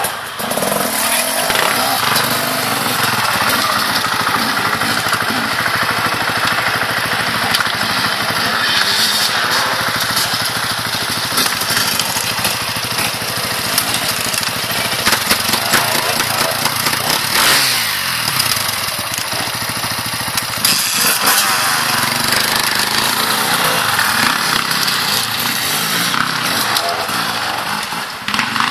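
Several enduro dirt bike engines running and revving. Around the middle the pitch rises and falls as the throttle is opened and closed.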